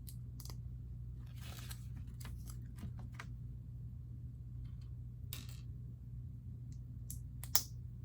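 Small plastic LEGO pieces being handled and pressed together: scattered light clicks and a brief rustle, with one sharper snap near the end.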